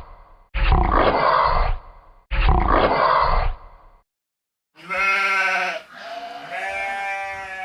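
Two rough, growling grunts of about a second each, then after a short pause two wavering, bleat-like calls.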